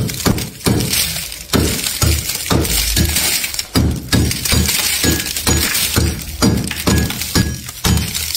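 Thick freezer frost being scraped off the shelves with a tool, a crunching stroke about twice a second.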